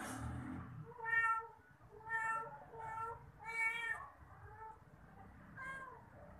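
A cat meowing: about six short meows, roughly one a second.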